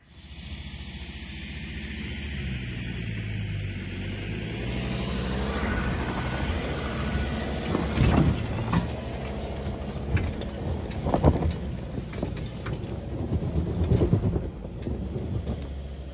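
Ford Ranger 4x4 engine working steadily as the truck climbs a steep, rutted dirt track. Several knocks and thumps from the suspension and body over the ruts come in the second half, the loudest about eight, eleven and fourteen seconds in.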